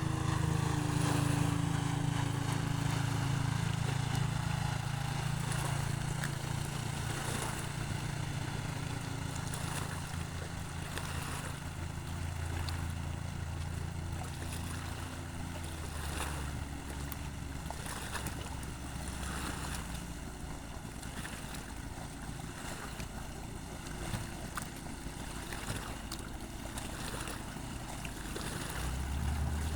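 Small boat's engine running steadily, with water and wind noise around it; its hum drops to a lower pitch about halfway through.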